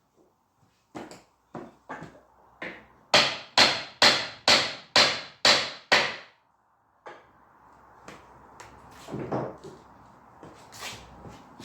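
A run of about a dozen hammer blows on wood, roughly two a second, getting louder partway through, as a pegged mortise-and-tenon chair joint is knocked apart. They are followed by scraping and handling of the loosened wood, with a few lighter knocks.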